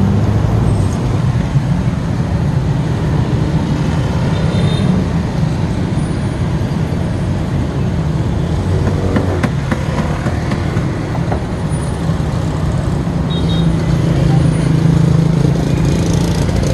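Steady roadside traffic noise with motor engines running, one engine louder near the end.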